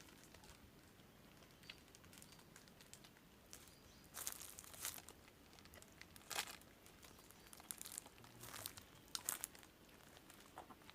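Near silence broken by a few short, faint crinkling rustles, the clearest about four, six and nine seconds in.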